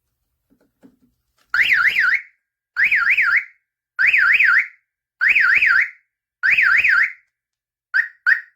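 CHADWICK universal car alarm siren sounding in five short, loud bursts about a second apart, each a fast up-and-down warble, followed near the end by two short chirps.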